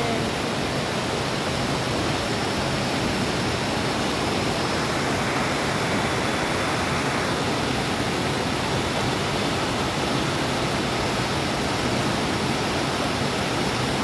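Waterfall and river rapids rushing steadily: a constant roar of falling and churning water.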